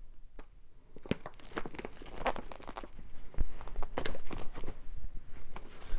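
Clear plastic storage envelopes and cellophane-packaged craft supplies crinkling and rustling as they are handled and flipped through, with irregular clicks and taps. It is sparse at first and busier from about two seconds in.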